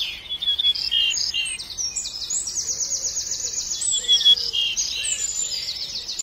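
Songbirds chirping and trilling: quick runs of high, rapidly repeated notes in several different phrases, cutting off abruptly at the end.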